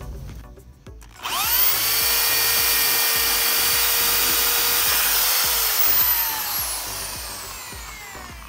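Corded electric drill spinning up about a second in and boring into a round wooden board, a steady high whine with a cutting hiss. Near the end the trigger is released and the motor winds down, its pitch falling as it fades.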